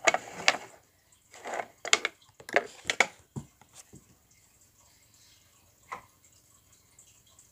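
Scattered knocks, clicks and rustles of objects being handled and moved about on a desk for the first few seconds, then quiet room tone with one more click about six seconds in.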